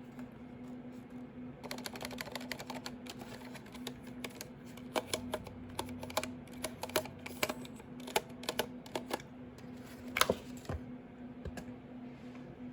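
Typing on a Ducky One 2 Mini mechanical keyboard with Cherry MX Silent Red switches: quick irregular runs of keystrokes, starting a couple of seconds in, with one louder stroke near the end.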